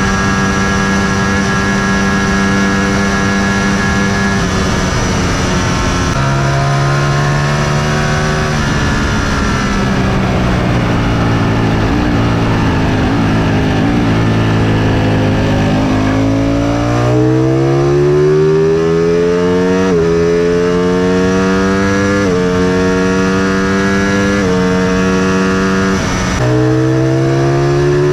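Sport motorcycle engine under way at a steady pitch at first, then dropping in pitch as it slows. In the second half it accelerates hard through the gears: the pitch climbs and falls back at each upshift, about every two seconds.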